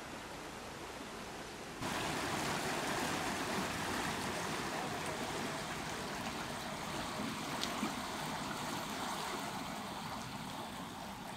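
Floodwater flowing past the bank, a steady rush of water that turns louder about two seconds in.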